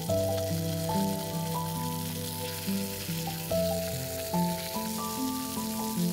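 Sausage slices sizzling as they fry in a pan, with background music playing a melody over the sizzle.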